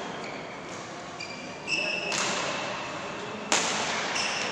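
Badminton rally in a large sports hall: racket strings striking the shuttlecock twice, sharply at about a second and a half in and again, louder, past three seconds in, each hit echoing in the hall. Short high squeaks of shoes on the court mat come in between, with voices in the background.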